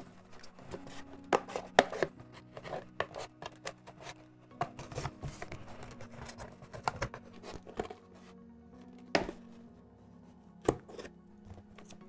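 Scissors snipping and crunching through the side of a painted cardboard shoebox to cut out a round hole: a run of sharp, irregular snips that thin out to a few in the last seconds, with background music beneath.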